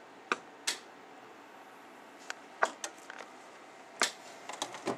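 Scattered short, sharp clicks and light knocks of handling noise, about ten in all, the loudest a little past halfway and about four seconds in.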